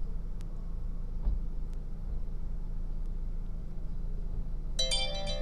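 Steady low hum of a car idling, heard from inside the cabin. A few faint ticks come through, and near the end a smartphone's electronic alert tone starts up.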